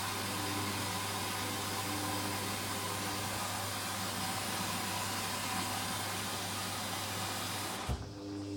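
Hoover washing machine taking in water through its inlet valve: a steady rushing hiss with a low mains hum, which shuts off abruptly with a brief thump near the end.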